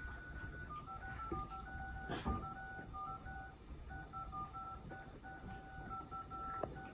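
Touch-tone phone keypad beeping as a number is dialed, a quick run of short two-note tones with brief gaps, and a light knock about two seconds in.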